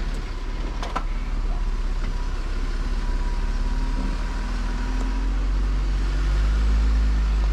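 Jeep engine running at crawling speed on a rocky trail, a low steady rumble that rises a little in pitch and level in the second half as it is given more throttle.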